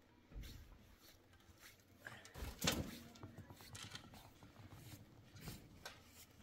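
Shovels scraping into stony ground and loads of manure thrown into a pickup truck's metal bed: scattered knocks and scrapes, the loudest thud about two and a half seconds in.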